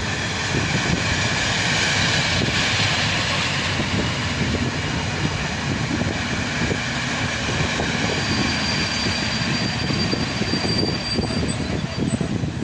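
Passenger coaches of an Intercity train rolling past along the platform: a steady rush and rumble of wheels on the rails, with a thin high tone from about eight seconds in.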